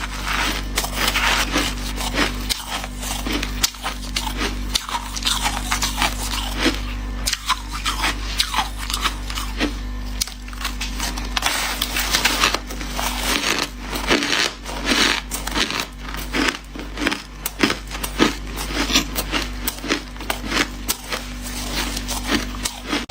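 Close-up chewing of hard shaved ice and crushed ice: a dense, continuous run of crisp crunches and cracks from the bites, over a steady low hum.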